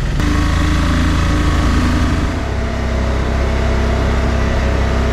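Engine of a handlebar-steered motor taxi running steadily under way, heard from the passenger seat. Its note changes about two seconds in.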